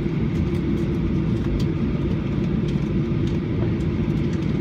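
Inside the cabin of a Boeing 737-800 rolling along the runway after touchdown: a steady low rumble from the engines and the wheels on the pavement, with a hum running through it and a few faint rattling ticks.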